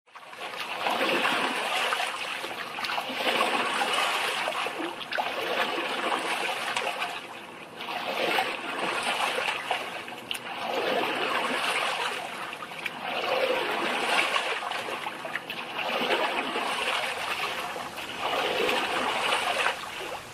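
Water splashing and lapping against the hull of a small wooden boat moving through choppy river water, the sloshing swelling and easing every two to three seconds.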